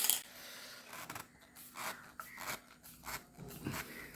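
Short scrapes and clicks of plastic from handling threaded PVC pipe and fittings, with a sharp click at the start.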